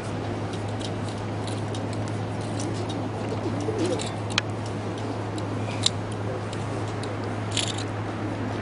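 Pigeons cooing over a steady low background hum, with two sharp clicks a second and a half apart in the middle.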